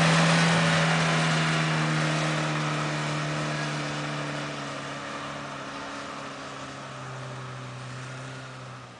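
Suzuki off-road 4x4's engine running as it drives away along a muddy forest track, its note fading steadily with distance. The pitch steps down a little midway and again near the end.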